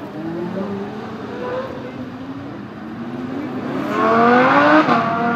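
Lamborghini supercar engines revving hard as the cars accelerate away, the pitch climbing. Near the end comes the loudest rev: it rises steeply for about a second, then drops abruptly.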